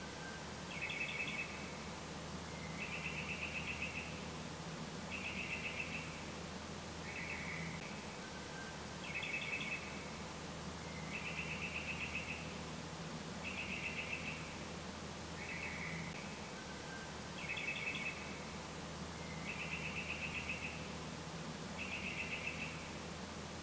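Short trilled chirps, each under a second long, come about every two seconds from an animal calling at night, over a steady low hum.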